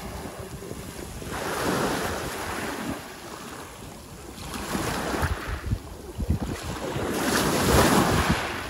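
Sea waves breaking and washing on the shore in three surges, the last the loudest, with wind buffeting the microphone.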